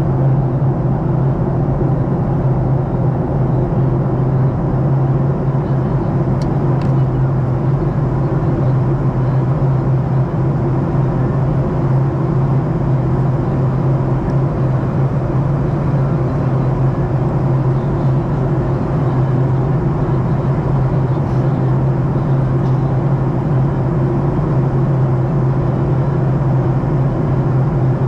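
Jet airliner cabin noise in cruise flight: the steady drone of engines and airflow, a strong low hum under a broad even rush that never changes.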